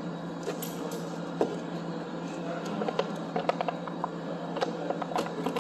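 Lid of an instant noodle cup being peeled back, with scattered short crinkling clicks that bunch together in the second half, over a steady low hum.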